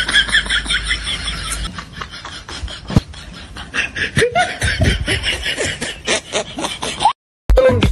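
Laughter, quick short repeated laughs that cut off abruptly about seven seconds in; music starts near the end.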